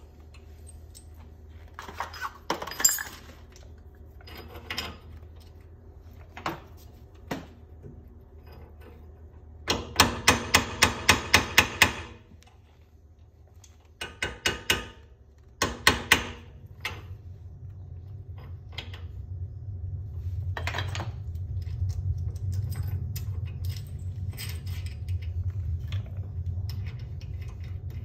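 Hammer striking the steel wheel studs in a car's front wheel hub. A quick run of about eight sharp metallic blows, some three a second, comes about ten seconds in, with a few more strikes after it and lighter clicks and knocks before. A steady low hum comes up in the second half.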